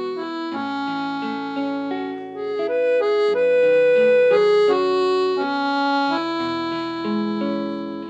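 Instrumental background music: a melody of held notes over sustained chords, with no other sound standing out.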